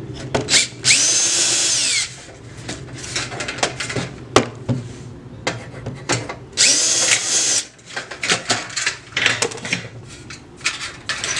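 DeWalt 20V cordless drill/driver backing out the screws that hold a ballast in a sheet-metal fluorescent light fixture. It makes two runs of about a second each, near the start and past the middle, and the motor whine drops in pitch as the first run stops. Small metallic clicks and taps come between the runs.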